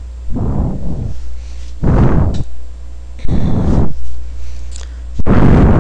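Four loud puffs of breath noise on a close microphone, about one and a half seconds apart, over a steady low hum.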